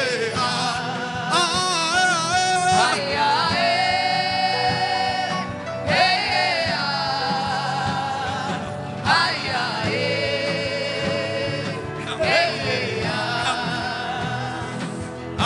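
Worship music with a wordless sung vocal: long held notes with vibrato in phrases of about three seconds, over a steady sustained accompaniment.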